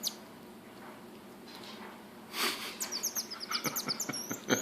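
Marmoset chirping: after a quiet start and a short breathy puff, a rapid string of short, very high chirps begins a little past the middle, each one sliding down in pitch.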